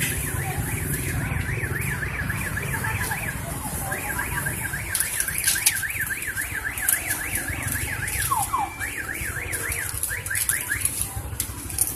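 Electronic alarm siren warbling rapidly up and down, about four sweeps a second, with a short break about three and a half seconds in, over a steady low rumble, with a few sharp clicks.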